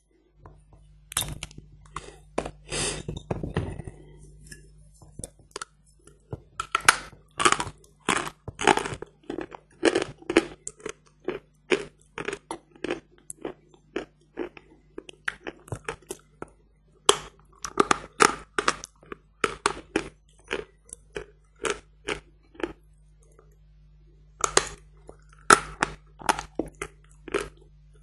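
Dry crunching and snapping of hard 'Badger' chalk. A burst of cracking comes in the first few seconds, then a long run of sharp crunches, about two to three a second, with a short lull before the last few crunches.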